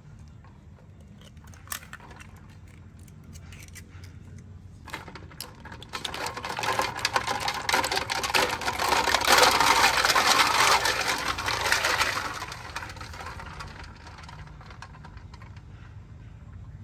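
A mass of snail shells clattering together: a dense rattle of small hard clicks that swells about a third of the way in, is loudest around the middle, and fades near the end.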